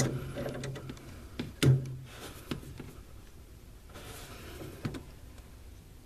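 Locking pliers gripping and working a steel eye bolt to bend it closed: one sharp metallic click about a second and a half in, then a few faint clicks and scrapes.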